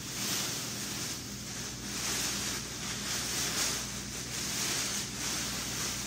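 Ozone Sirocco 2 paramotor wing's nylon fabric rustling and swishing as it is handled and unfolded, a continuous hiss that swells and eases in quick surges. It starts suddenly at the beginning.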